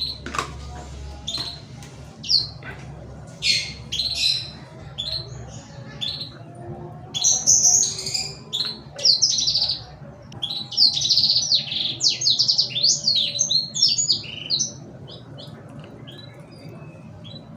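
Small birds chirping and twittering: many short, high calls, busiest from the middle to near the end, over a low steady hum.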